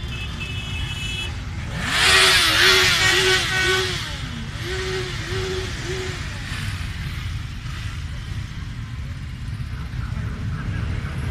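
Motorcycles rolling past slowly, engines rumbling steadily. About two seconds in, engine noise swells loudly for a couple of seconds, and a horn sounds a run of short repeated notes for about four seconds.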